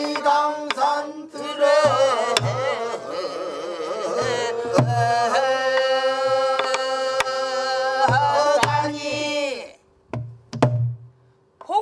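A woman singing a long, held danga phrase in Korean traditional vocal style, the pitch wavering and sliding with heavy vibrato, over occasional strokes on a buk barrel drum. The singing stops a little before the end, two more drum strokes follow, and a new sung note begins just at the close.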